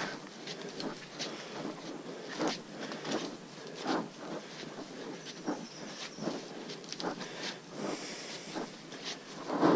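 Footsteps of hikers walking on a muddy, leaf-covered dirt trail, irregular steps about once a second, with the loudest step near the end.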